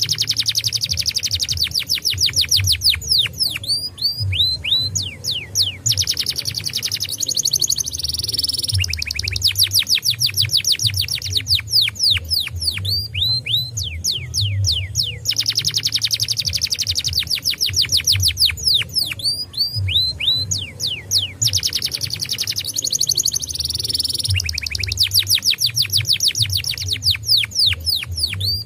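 Domestic canary singing: long rolling trills of fast, rapidly repeated sweeping notes, phrase after phrase with short breaks between them, over a steady low hum.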